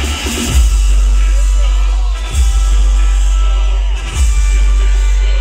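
Loud music from large outdoor PA speakers: a heavy sustained bass with a strong hit about every two seconds.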